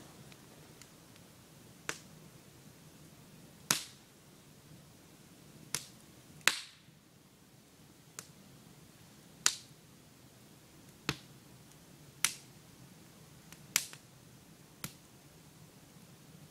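Campfire of burning logs crackling: about ten sharp, separate pops at uneven intervals over a faint steady background, one near the middle trailing off in a short hiss.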